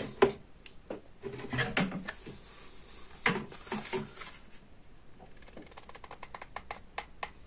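Hands handling a plastic syringe fixed on a metal hand-stapler mechanism: light knocks and rustling at irregular moments. Near the end comes a fast run of small clicks as a hot glue gun is worked on the assembly.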